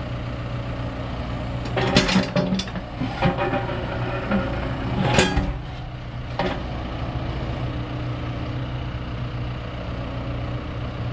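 Digging machine's engine idling steadily, with several clanks and clatters about two, three, five and six and a half seconds in.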